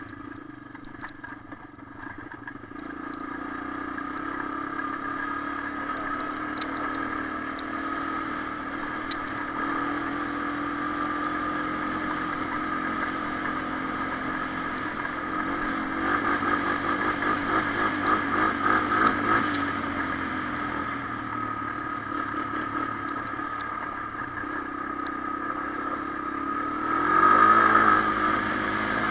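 Honda TRX250 ATV's single-cylinder engine running as it is ridden, its pitch wandering with the throttle. It gets louder and rougher for a few seconds past the middle, then revs up sharply near the end, which is the loudest moment.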